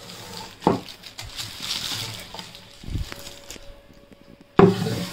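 Clear plastic packing bag crinkling and rustling as an 8-inch car subwoofer is pulled out of it and the bag pushed aside, with a few handling knocks, the loudest near the end.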